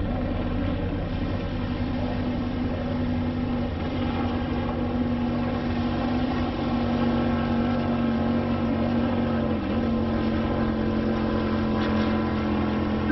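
A motor droning steadily, with a strong low hum and evenly spaced overtones, briefly dipping in pitch about two-thirds of the way through.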